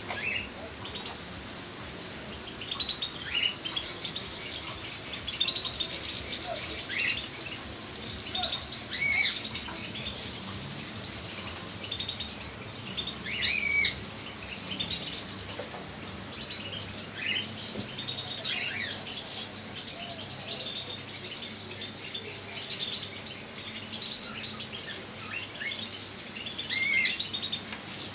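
Small cage birds chirping and calling continuously, many short high chirps with a few louder calls standing out, the loudest about halfway through.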